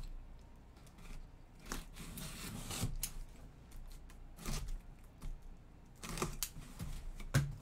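Cardboard box being opened by hand: its tape seal torn and the cardboard flaps handled, giving scattered tearing and rustling strokes with a few light taps.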